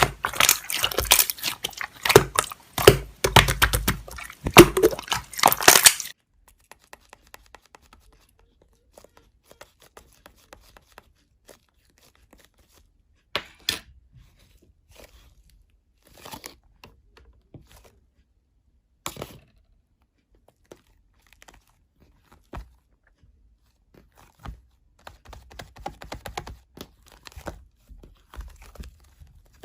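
Close-up crinkling and crackling handling noise, dense and loud for the first six seconds, then only scattered faint clicks and a few sharp taps, with a little more crinkling near the end.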